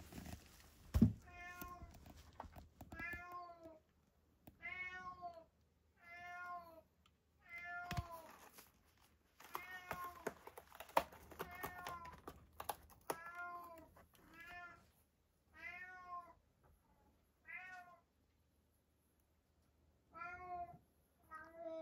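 Domestic cat meowing over and over, roughly every one to two seconds, each meow rising and then falling in pitch, with a few faint clicks in between.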